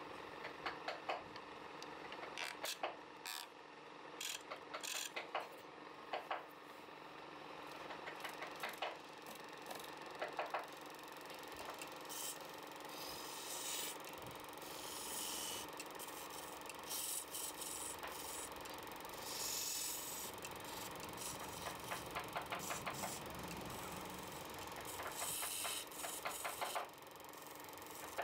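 Wood lathe running with a steady hum. Sharp clicks and taps come in the first half, then scraping hiss in repeated passes as a tool or abrasive works the spinning wood.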